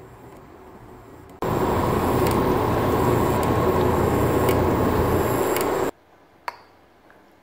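Pan of chicken tinola soup boiling: a steady bubbling hiss that starts abruptly about a second and a half in and cuts off near six seconds. A single light clink follows.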